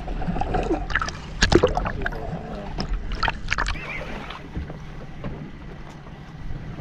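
Water splashing and churning at a small boat's hull as a hooked fish is brought up alongside, with several sharp splashes in the first few seconds, the loudest about a second and a half in. After that it settles to a steadier wash of sea and wind.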